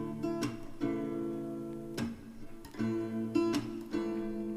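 Acoustic guitar strumming chords, the instrumental gap between sung lines of a background song.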